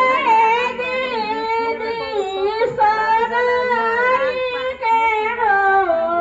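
Women singing a traditional wedding song together in high voices, with long held, wavering notes.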